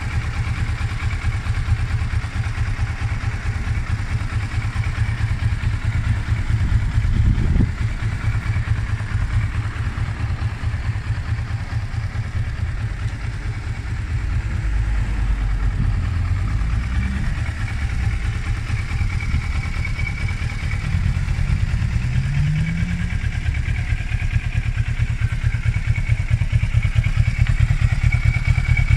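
Kawasaki ER-6n's 649 cc parallel-twin engine idling steadily, with a couple of brief rises in revs, one about seven seconds in and a rising one past the middle.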